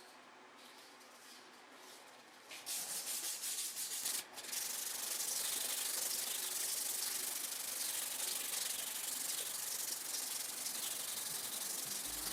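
Sanding a knife handle. A faint hiss gives way to a few short rubbing strokes about two and a half seconds in, then steady sanding from about four and a half seconds on.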